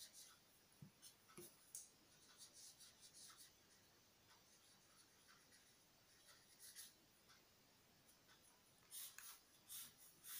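Ballpoint pen writing on paper: faint, quick scratching strokes, with a few louder, longer strokes near the end as the words are underlined.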